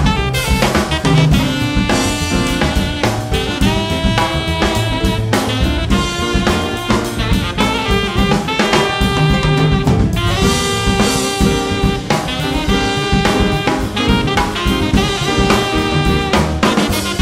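Jazz quartet playing: an alto saxophone lead over a busy drum kit with snare and rimshots, backed by piano and bass.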